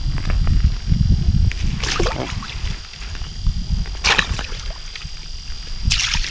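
Water splashing and sloshing in an ice-fishing hole as a big bass is lowered in and released, with short sharp splashes about two, four and six seconds in. A low rumble of wind on the microphone runs underneath, strongest in the first second or so.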